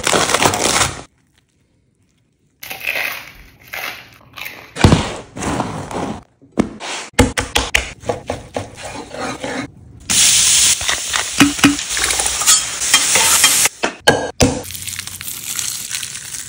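A series of cooking sounds cut one after another. First a knife crunches through toasted bread on a wooden board. Later come knife cuts and knocks on the board, and a steady sizzle of food frying in a hot pan for several seconds near the end.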